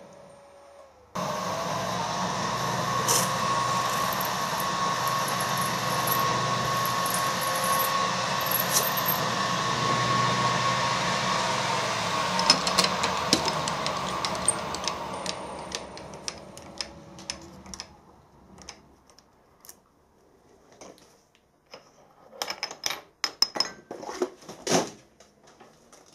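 Milling machine spindle drilling a small cross hole through a brass pin for a split pin. The motor starts suddenly about a second in, runs steadily with a few held tones, and winds down between about fifteen and eighteen seconds. Scattered clicks and knocks follow as the vise and workpiece are handled.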